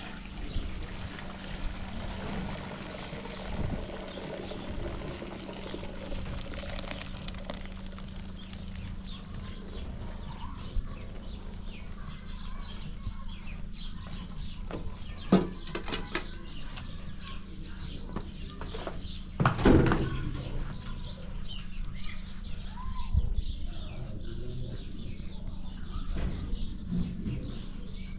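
Hot cooked rice tipped from a metal cooking pot into a plastic colander, a hissing pour over the first several seconds. A few sharp knocks and clatters of the pot and utensils follow, the loudest about twenty seconds in.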